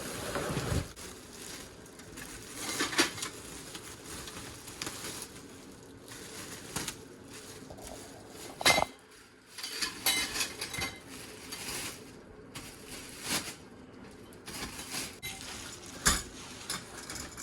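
Metal grow-tent frame pieces clinking and clattering as they are unpacked and handled, in irregular knocks and clinks.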